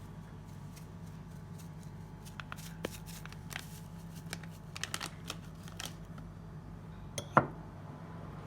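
Scattered light clicks and rustles of a spice container being shaken and handled while dried parsley is sprinkled over raw chicken, with one sharper click about seven seconds in. A steady low hum runs underneath.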